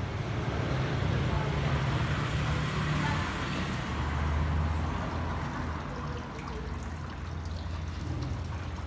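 Low rumble of motor traffic, swelling and shifting in pitch around the middle, with faint voices underneath.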